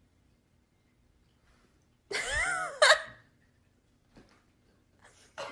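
A kitten meows once about two seconds in: a high call just under a second long that rises and then falls in pitch, cut off by a sharp click.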